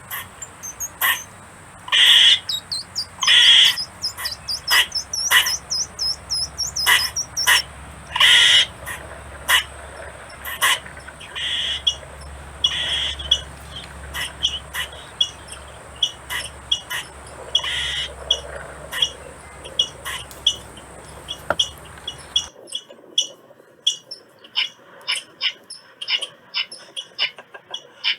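Squirrel calls: rapid, irregular series of sharp chirps and barks, some runs falling in pitch, repeating throughout. A low steady background hum stops suddenly about three-quarters of the way through.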